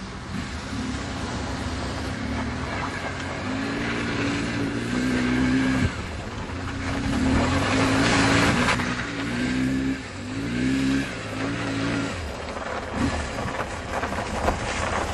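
BMW GS motorcycle engine revving up and down as the bike is ridden on snow, with a rushing noise that grows loudest about eight seconds in.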